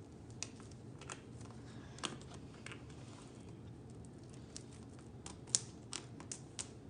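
Fingernails picking and scratching at the plastic shrink-wrap on an iPad box, giving a faint scatter of small irregular clicks and crinkles.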